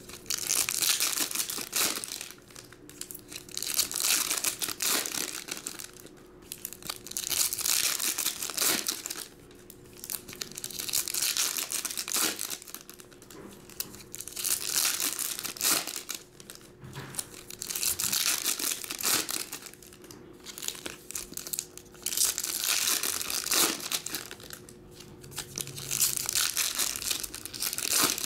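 Foil trading-card pack wrappers being torn open and crinkled by hand, one after another, with a burst of crinkling about every two seconds.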